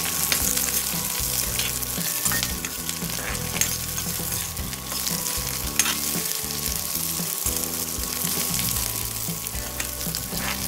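Chopped onion, green chillies and peanuts sizzling in a little hot oil in a steel kadhai. They are stirred with a metal spoon that now and then clicks and scrapes against the pan.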